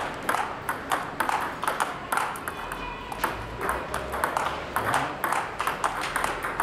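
Continuous table tennis rally: the ball clicks alternately off the table and the paddles, about four clicks a second, in a steady rhythm. One player drives forehand topspins crosscourt while the other blocks.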